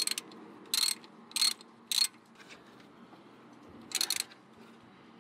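Ratchet wrench clicking in short back-strokes as the brake line bolt is screwed into a new brake caliper over fresh crush washers. Four quick bursts in the first two seconds, then one more about four seconds in.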